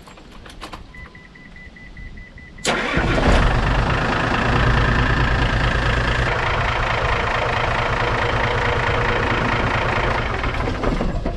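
A beeping tone sounds, then the 2007 Hino FG truck's diesel engine cranks and starts suddenly about two and a half seconds in, and runs steadily before falling away near the end. This is the first start after an oil and filter change, with the new filter pre-filled so oil pressure builds quickly.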